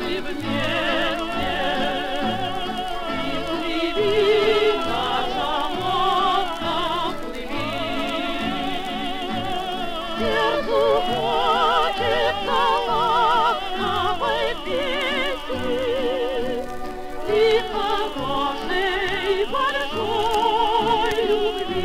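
An old Soviet 78 rpm gramophone record playing: voices singing with a wide vibrato over an orchestra. The sound is dull, with little treble.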